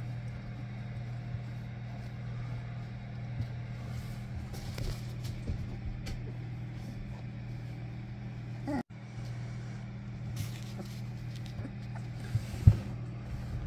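Steady low hum under soft scuffling and small knocks from springer spaniel puppies play-wrestling on a blanket. There is a short rising squeak about nine seconds in, and one sharp knock near the end.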